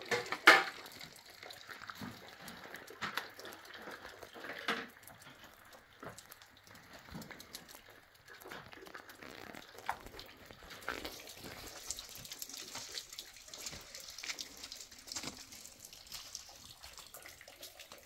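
Water splashing and trickling with scattered irregular knocks and clinks, the loudest about half a second in.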